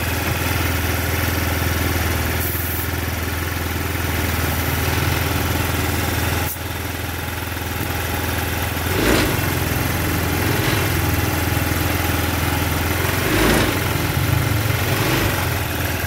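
Fuel-injected engine idling at an abnormally high, loud idle, with a brief dip about six seconds in and two short surges later. The high idle comes from the idle air control valve (IACV), which on this engine has no idle adjustment screw.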